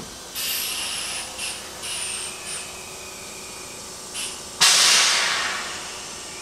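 Train's compressed air hissing: several short bursts, then a sudden loud release about four and a half seconds in that fades away over a second and a half, typical of air brakes venting.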